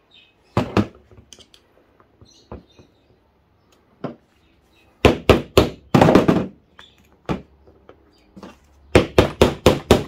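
Claw hammer striking the end of a flat-blade screwdriver, driving the blade into a washing machine pump motor's stator to start prying out its copper winding. There are a couple of sharp knocks early, a cluster of heavy blows around the middle, and a quick run of about seven blows near the end.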